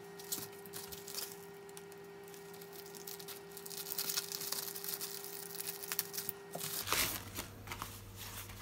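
Plastic postal mailer crinkling and rustling as it is handled and cut open with scissors, in small irregular crackles that grow busier in the second half.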